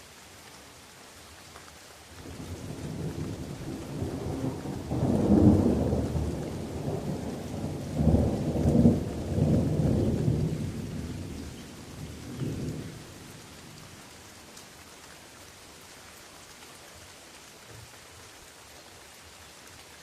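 A long roll of thunder over steady rain falling on leaves: the deep rumble builds about two seconds in, swells with a few heavier peaks in the middle and dies away after about thirteen seconds, leaving only the rain's hiss.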